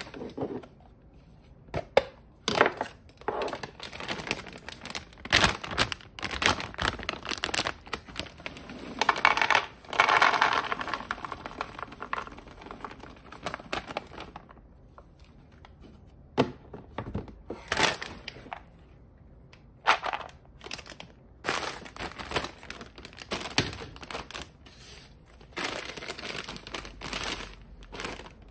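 Plastic food packaging crinkling and rustling, with hard plastic containers clicking and knocking as they are set down. For several seconds around the middle, dried peanuts pour and rattle out of a plastic bag into a plastic container.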